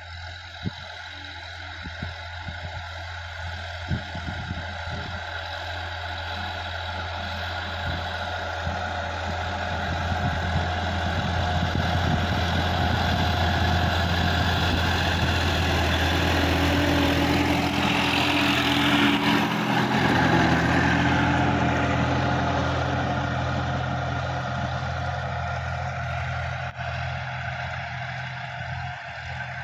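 Sonalika DI-50 RX tractor's diesel engine running steadily under load while it pulls a rotary tiller through the soil. It grows louder as the tractor approaches, is loudest as it passes about two-thirds of the way through, then fades as it moves away.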